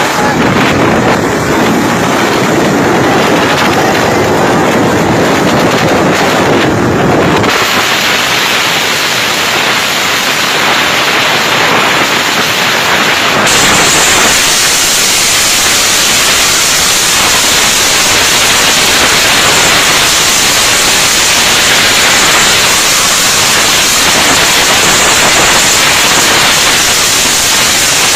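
Heavy wind rushing over the microphone of a phone filming from a moving vehicle at speed, mixed with vehicle and road noise. The noise changes character abruptly twice, about 7 and 13 seconds in.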